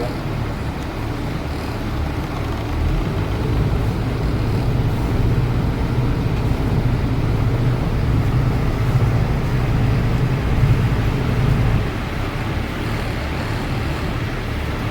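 Power catamaran's engines running in reverse as the boat backs out, a steady low hum that builds a little about three seconds in and eases back near twelve seconds.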